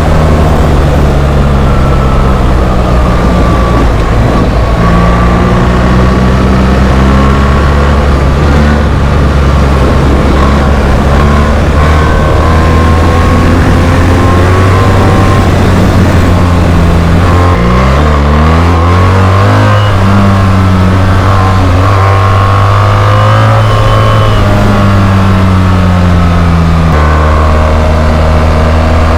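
BMW R 1300 GS's 1300 cc boxer twin running loud through an SC Project Rally-X titanium slip-on exhaust. The note holds fairly steady with slow changes in pitch, and a little over halfway through it drops briefly, then climbs again.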